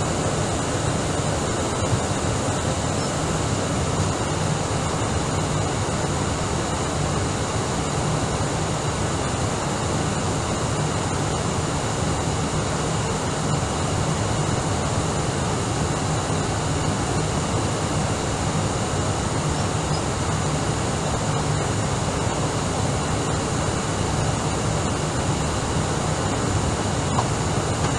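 Steady cabin noise inside an Airbus A319 airliner in flight: a constant rush of airflow and engine hum, with a few faint, steady high-pitched whines on top.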